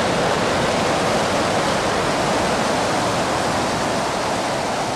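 Loud, steady rush of freefall wind buffeting the camera microphone during a tandem skydive.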